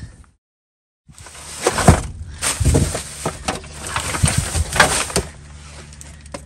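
Rummaging through dumpster trash with a reacher-grabber tool: cardboard, plastic bags and packages rustling and crinkling, with repeated sharp knocks and clatters, over a steady low hum. It starts after a brief dead silence near the start.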